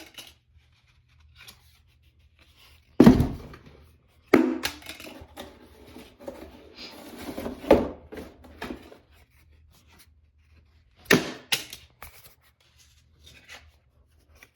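3D-printed plastic playing cards being thrown and knocking against a hard surface. There are five sharp knocks spread out, two close together near the end, with rustling and scraping between them.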